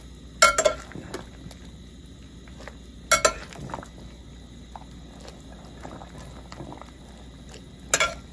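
A metal slotted skimmer clinks sharply against the dishes three times, a few seconds apart, as ravioli are lifted out of boiling water, over the low steady bubbling of the pot.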